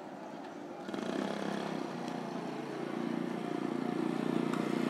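Motorcycle engine running, starting about a second in and growing steadily louder.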